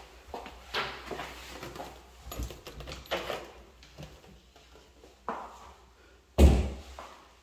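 Footsteps on a hard floor inside a small room, with a few light knocks, then one loud, deep thump about six and a half seconds in.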